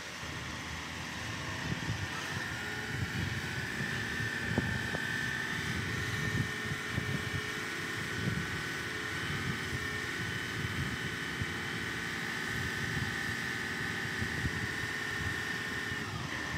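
Small multirotor drone's propellers running with a steady high whine that drifts slightly in pitch, over gusty low wind rumble.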